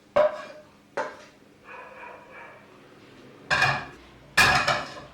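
Metal cookware clattering as fried vegetables are tipped from a frying pan into a soup pot: two sharp clinks with a short ring, then two louder scraping clatters near the end.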